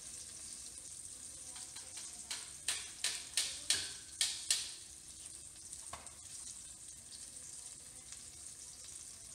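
Breaded sea trout fillets frying in a pot of hot oil: a steady sizzling hiss, with a quick run of about seven sharp pops between two and five seconds in.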